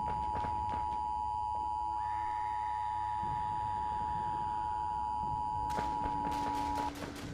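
Emergency Alert System attention signal: two steady tones sounding together (853 and 960 Hz), held for about seven seconds and then cut off. Near the end a run of sharp cracks sets in over a low hum.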